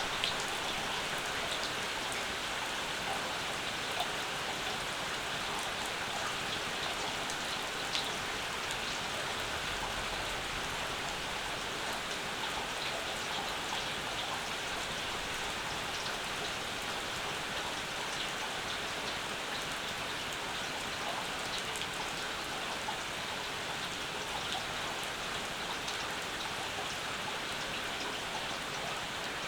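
Steady summer rain falling, with a few louder single drops now and then.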